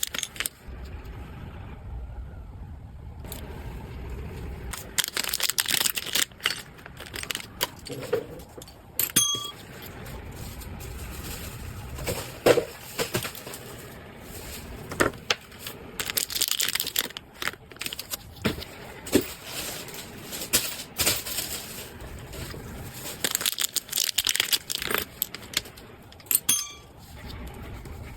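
Packaging being handled: irregular crinkling and tearing bursts with scattered small clicks and taps of objects set down.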